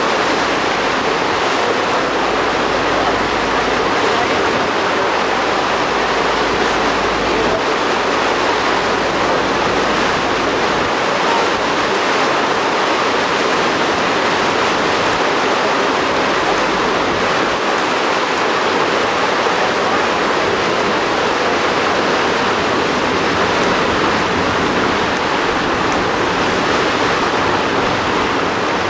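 Steady rushing of water and wind aboard a moving boat, with a faint low hum in the first few seconds.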